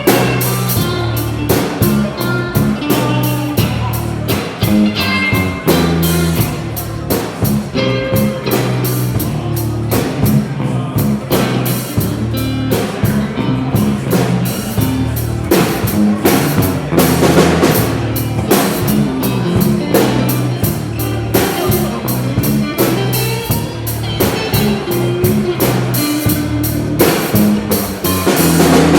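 Band music without singing: a drum kit keeping a steady beat under guitar and a low bass line.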